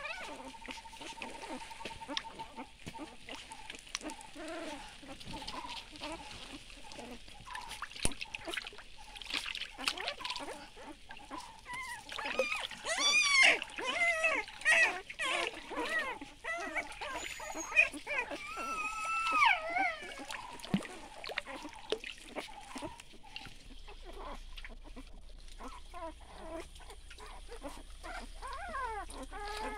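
Young puppies whimpering and squealing in high, wavering cries while they wade and are splashed in shallow stream water. The cries come thickest and loudest in the middle stretch, with water splashing throughout.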